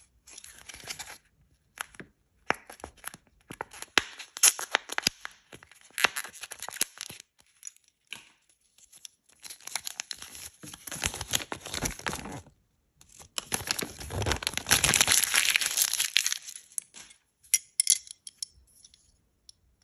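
Close-up crinkling and rustling of a Kinder Joy toy's paper wrapper and folded leaflet being handled and unfolded, broken by small sharp clicks of hard plastic from the capsule and toy. A longer, denser run of crinkling comes about two thirds of the way through.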